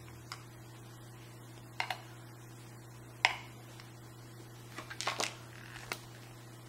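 Scattered light clicks and taps of small metal parts being handled: the brass pins, spools and steel springs of a gutted Abus 72/40 padlock. There are about six sharp clicks, a few of them in quick pairs, over a steady low hum.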